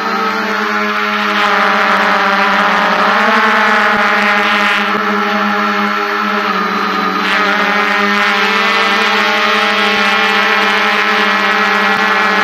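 DJI F550 hexacopter's six motors and propellers buzzing steadily in flight, heard close up from a camera mounted on the frame. The pitch rises and falls briefly about three seconds in and settles a little lower later.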